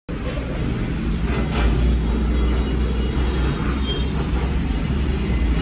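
A steady low rumble, strongest deep in the bass, with a faint hiss above it.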